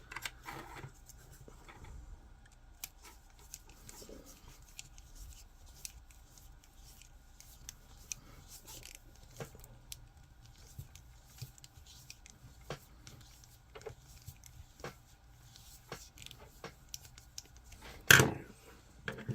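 Small 3D-printed PLA figure parts being handled and fitted together: scattered light plastic clicks and rubbing, with one louder sharp knock near the end.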